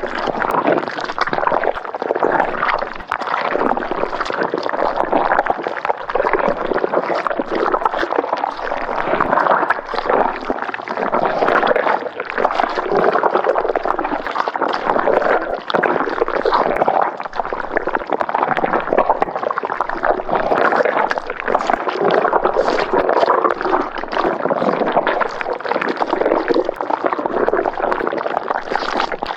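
Thick, viscous liquid bubbling and gurgling without a break, a dense run of small plopping bubbles.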